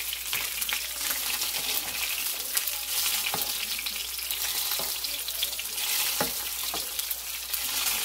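Black sea bream fillet shallow-frying in hot oil, a steady sizzle with scattered crackles, while hot oil is spooned over the scored skin.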